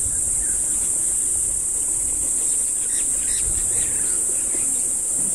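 Steady, high-pitched drone of a daytime insect chorus, with a few faint chirps about three seconds in.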